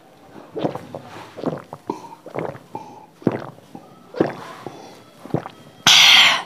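Close-miked mouth sounds: short breathy puffs and smacks from a mouth burning after spicy noodles. About six seconds in comes a loud, noisy slurping sip of water from a plastic cup, lasting about half a second.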